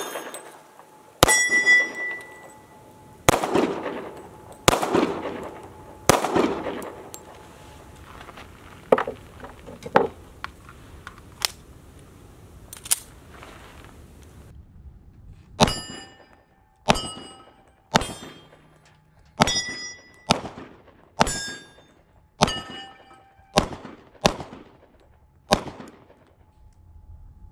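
Pistol shots from a hammer-fired Stoeger Cougar firing .40 S&W handloads primed with small rifle primers, every round going off. Many shots are followed by the ringing of a struck steel target. Several shots and a few fainter pops come in the first half, then after a short gap about ten shots come roughly a second apart.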